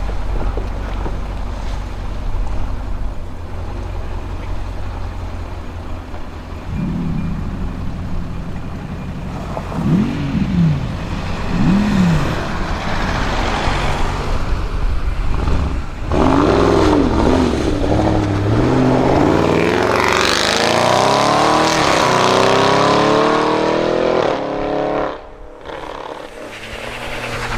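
Audi RS6 Avant C7's twin-turbo V8 through a Milltek exhaust: idling, then three quick revs, each rising and falling, about a quarter to nearly half of the way in. After that it accelerates hard, the engine note climbing, dropping once at an upshift and climbing again, before cutting off suddenly near the end as the throttle is lifted.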